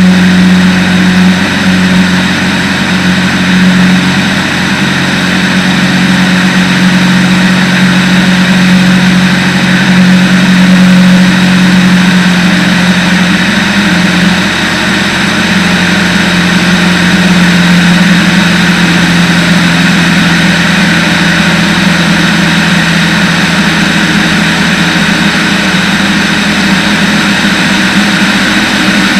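Light-aircraft piston engine and propeller droning steadily in flight, with wind rushing over a wing-mounted camera.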